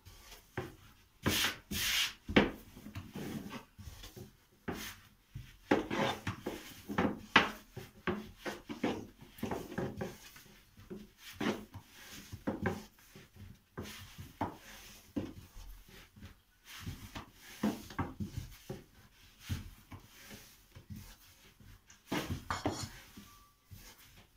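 Long, thin wooden rolling pin (oklava) rolling and rubbing over yufka dough on a round wooden pastry board, with repeated irregular knocks of wood on wood as the sheet is rolled out thin.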